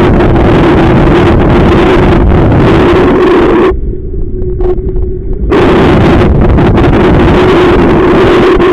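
Strong wind buffeting the microphone, with a steady hum underneath. The wind noise drops away for about two seconds in the middle while the hum carries on.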